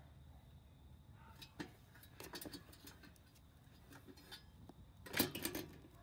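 Hens pecking feed pellets from a metal feeder trough: irregular sharp taps of beaks on the pellets and the metal. One tap comes early, then short runs of taps, with the loudest flurry near the end.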